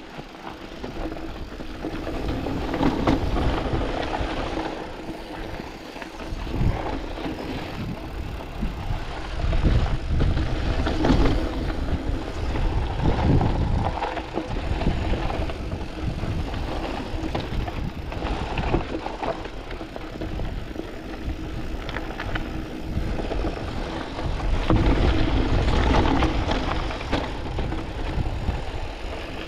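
Canyon Spectral AL 6.0 full-suspension mountain bike riding down a dusty, rocky singletrack: tyres crunching over loose gravel and stones, the bike knocking and rattling over bumps. Low wind rumble on the chest-mounted microphone swells and fades, loudest around three, thirteen and twenty-six seconds in.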